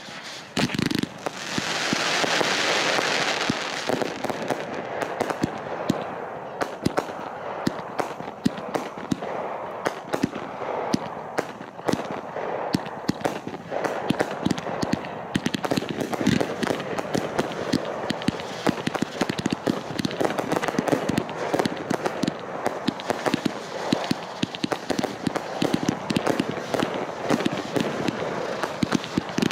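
Fireworks going off: a loud hiss about a second in that lasts a couple of seconds, followed by a long run of dense, irregular crackling pops.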